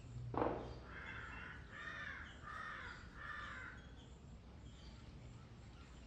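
A crow cawing four times in a row, harsh calls about three-quarters of a second apart. The calls are just after a brief loud thump about half a second in.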